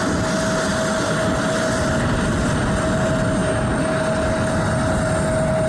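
Jet airliner engines running steadily: a constant rumble with one steady whine over it.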